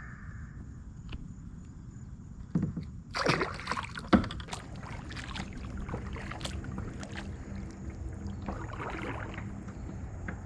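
A small boat moving on the lake, with a steady low rumble, water sounds and a cluster of knocks and splashes between about two and a half and four and a half seconds in.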